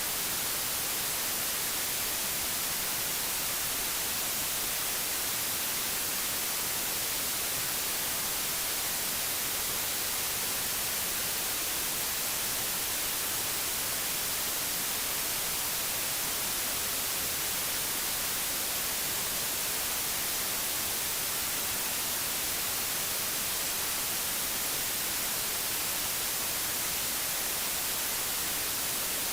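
Steady, unchanging digital white noise: an even, full-range hiss.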